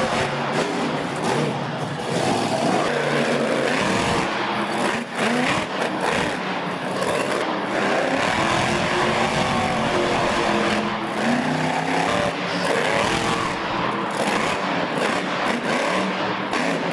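Monster truck engines revving hard, the pitch rising and falling again and again as the trucks drive and jump.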